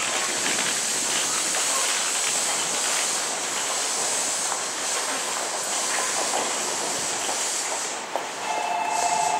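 JR Central 211-series and 313-series electric train standing at a station platform, with a steady high hiss. About a second before the end a steady electronic two-note tone starts.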